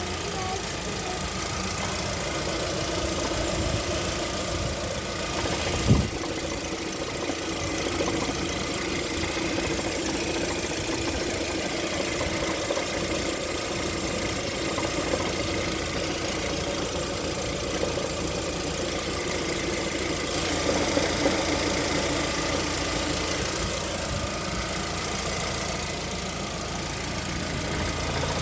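Lada Vesta's engine idling steadily with a knock whose source the owner cannot place. There is a single sharp thump about six seconds in.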